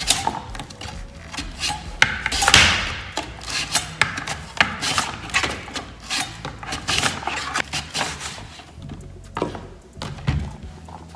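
Raw potato pushed back and forth across a plastic mandoline slicer's dicing blade under its hand guard: repeated scraping cutting strokes with clicks of plastic on plastic. A heavier knock comes near the end as the slicer is lifted.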